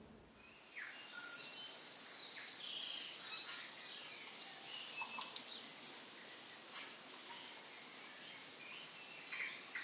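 Several wild birds chirping and singing, short varied high calls scattered over a faint steady hiss, starting about a second in.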